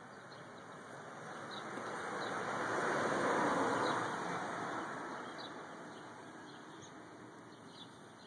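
A vehicle passing by: a smooth rush of noise that swells for about three seconds and then fades away, with a few faint bird chirps over it.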